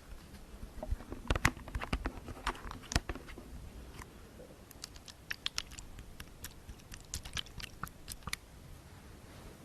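ASMR tapping on a hard object: quick, irregular taps and clicks in clusters, the loudest about a second and a half and three seconds in.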